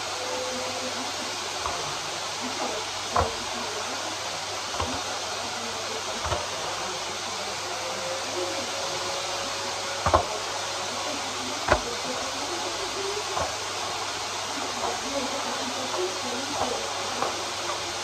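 Samsung SC4140 canister vacuum cleaner running steadily at full suction as its floor brush is pushed back and forth over carpet. A few sharp knocks come from the wand and floor brush, the loudest about ten and twelve seconds in.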